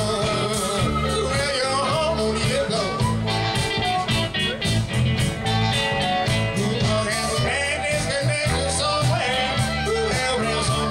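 Live blues band playing a shuffle: harmonica wailing with bending notes over strummed acoustic guitar and a drum kit keeping an even beat.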